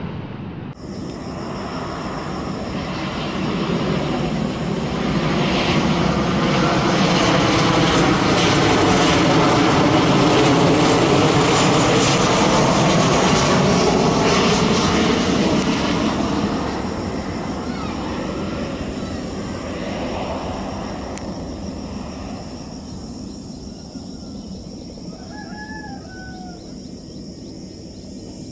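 Boeing 737 jet airliner passing low overhead on final approach: the engine noise builds to a loud rush with a sweeping, phasing tone at its peak, then fades away as the jet heads for the runway. A bird chirps a couple of times near the end.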